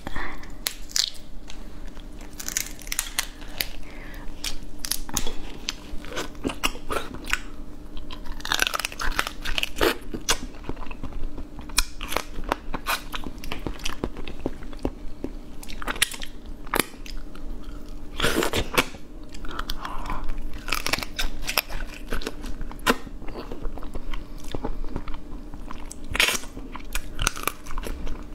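Close-miked crunching and chewing as a person bites through the shell of a soy-marinated female crab and eats the meat and legs, in irregular crunches with no steady rhythm. A faint steady hum lies underneath.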